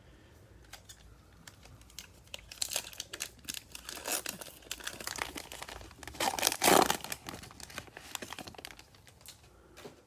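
Wrapper of a trading-card pack being torn open and crinkled by hand: irregular crackling and ripping, loudest at about six and a half seconds in, then dying down.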